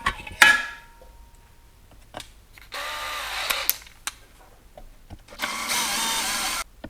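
Cordless power driver running in two short spurts, backing screws out of an RC car's chassis as it is taken apart. Near the start there are a couple of sharp metallic clinks with a brief ring.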